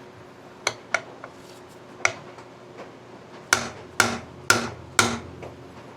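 A few light metallic clicks, then four sharp hammer blows on a steel tool about half a second apart: brute-force hammering to break loose a stuck screw in a motorcycle's stator cover.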